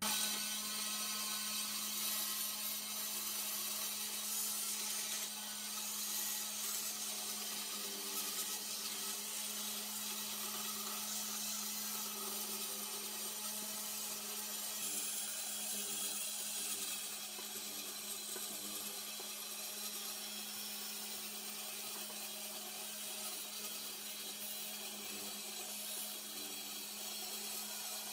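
Vertical band saw running with a steady hum and hiss, its blade cutting a curved outline out of a wooden board.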